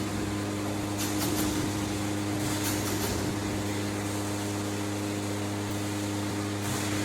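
Automatic filter cage welding machine running with a steady electrical hum. Brief high-pitched crackles come about a second in, again around three seconds in, and near the end.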